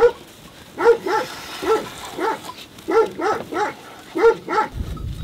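A dog barking repeatedly: about ten short barks, many in quick pairs, with a low rumble near the end.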